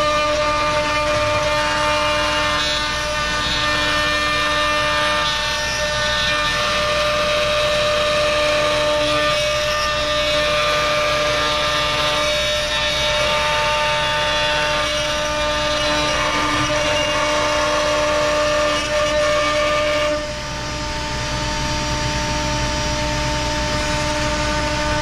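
ShopSabre PRO408 CNC router spindle running with its bit cutting through a wooden board: a steady whine of several tones over a hiss of cutting noise. The cutting noise eases off a little about twenty seconds in.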